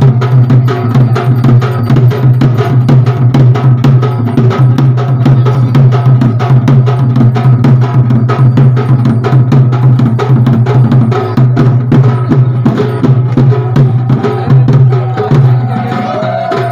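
Live festival percussion for a Danda Nacha fire dance: drums played in a fast, steady beat of sharp strokes over a constant low hum.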